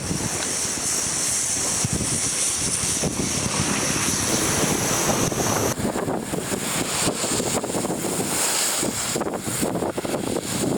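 Steady rush of floodwater from a burst river, mixed with wind noise on the microphone.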